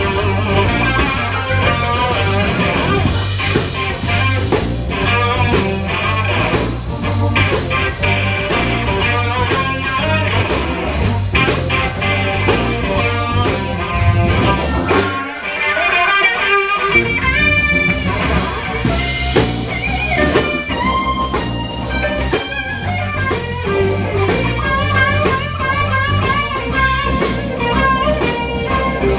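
Live blues band playing an instrumental passage: electric guitar lead over drum kit and bass. The drums and bass drop out for about two seconds near the middle while the guitar carries on, then the band comes back in.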